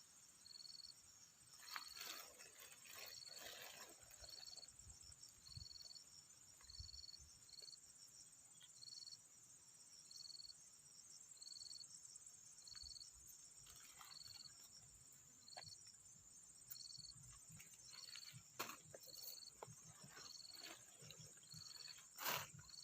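Faint cricket chirping in an even rhythm, about one and a half chirps a second, with a thinner high insect trill above it. Soft rustles and small clicks come now and then, from hands handling materials.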